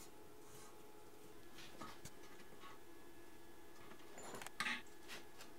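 Faint scraping of a hand tap being turned to cut threads in the thin galvanized steel wall of a can. Near the end comes a louder cluster of short metal scrapes and clicks as a brass elbow fitting is worked into the threaded hole.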